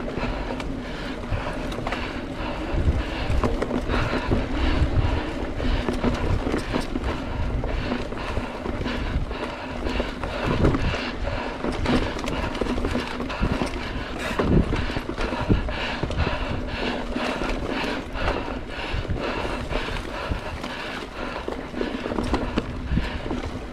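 Mountain bike rattling and knocking over a rough dirt trail while being ridden, a continuous irregular clatter of small impacts over wind and tyre noise.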